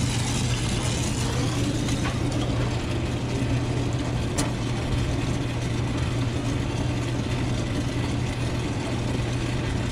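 A steady low mechanical hum with an even hiss over it, and a single sharp click about four and a half seconds in.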